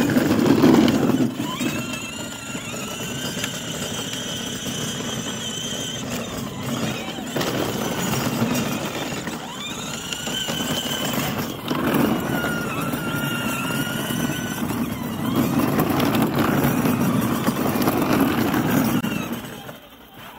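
Electric drive motors of a Kid Trax 12V ride-on zero-turn mower whining as it drives, the whine rising in pitch each time it pulls away and breaking off between runs, over the rumble of its plastic wheels on wet pavement. The sound drops away near the end.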